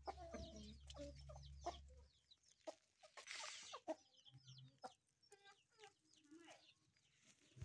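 Chickens clucking faintly, among scattered short high chirps, with a brief hiss about three seconds in.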